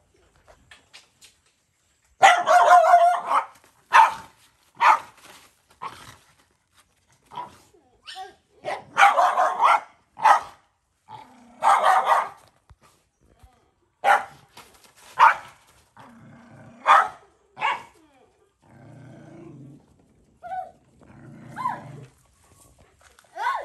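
A dog barking over and over, with two low growls a few seconds before the end: a mother dog warning off a boy who is feeding her puppy.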